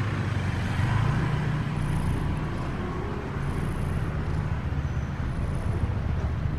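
Steady low hum under an even background noise, with no distinct events.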